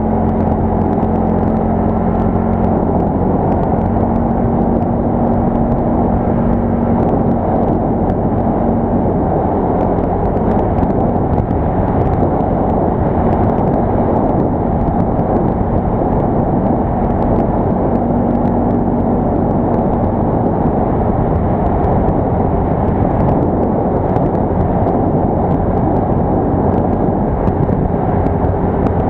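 Quad bike (ATV) engine running steadily while riding, a dense continuous drone with a faint engine hum that comes and goes.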